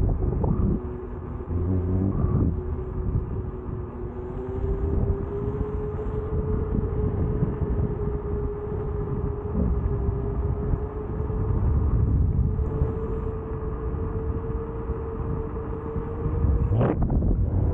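KingSong S22 electric unicycle at speed: a steady hub-motor whine over heavy wind and road rumble, the whine's pitch creeping slowly upward as it goes.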